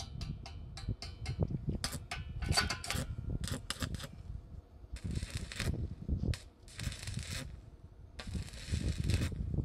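Stick (arc) welding on 50×50 square steel tube: a quick series of short crackles as the electrode is struck and restruck, then three runs of steady arc crackling of about a second each, the last near the end. A low rumble sits underneath.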